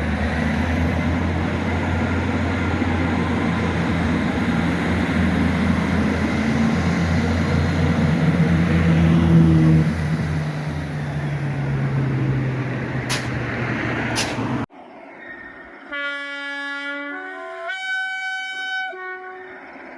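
Class 37 diesel locomotives' English Electric V12 engines working hard, with a heavy rumble whose note shifts and swells about halfway through, and two sharp clicks shortly before the sound cuts off abruptly. Then two long horn blasts sound, one after the other.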